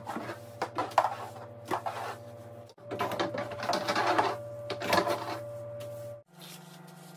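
Scraping and knocking of a stick poked and dragged through the narrow gap beside a refrigerator to sweep out dust, a rapid irregular series of scrapes over a steady low hum. The scraping stops about six seconds in, leaving only the hum.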